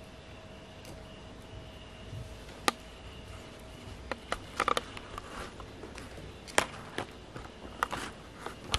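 A cat moving about inside a cardboard box: scattered light taps and short scratchy rustles of paws on cardboard, over a faint steady hum.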